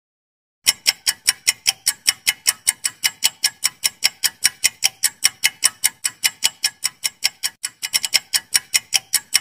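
Clock-ticking sound effect for a quiz countdown timer: fast, even ticks, about six a second, starting a little under a second in.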